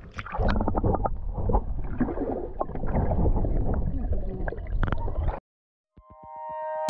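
Water splashing and gurgling close to the microphone, with many small knocks and a low rumble. It cuts off suddenly about five and a half seconds in, and background music with plucked notes begins near the end.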